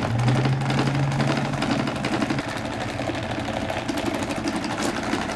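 Damaged Windmere 12-inch oscillating table fan running loud: the motor hums under a fast, continuous clattering rattle from its broken parts. The hum drops in pitch about two and a half seconds in.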